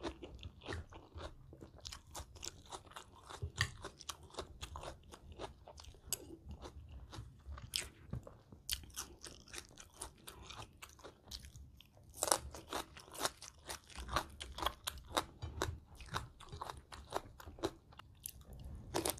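Close-up chewing and crunching of a spicy shrimp salad of raw and blanched shrimp with crisp vegetables: a steady run of small, irregular crunches, with a louder cluster of bites about twelve seconds in.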